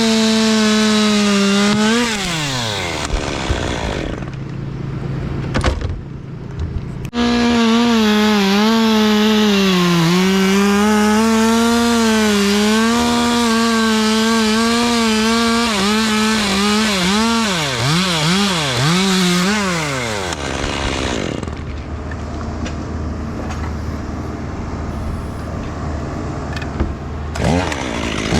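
Two-stroke chainsaw running at full throttle and cutting wood, its pitch sagging and recovering as it bites. It drops to idle about two seconds in, revs back up around seven seconds and cuts on, with several quick dips in pitch, before falling back to idle about twenty seconds in.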